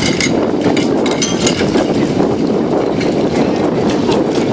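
Fire engine running steadily with a dense, unbroken rumble, and light irregular clatter of gear on top.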